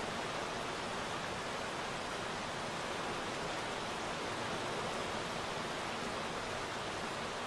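Heavy rain falling as a steady, even hiss, with no single drops standing out.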